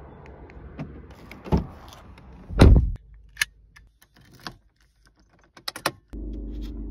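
Car key and door sounds from a VW Golf Mk7 1.6 TDI Variant: clicks and clunks, a heavy door-closing thud about two and a half seconds in, then the key clicking into the ignition and turning. About six seconds in the engine starts and settles into a steady idle hum.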